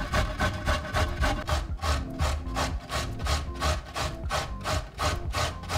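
Carrot being grated on a stainless steel box grater resting on a wooden cutting board: rhythmic rasping strokes, about four a second, slowing a little after the first couple of seconds.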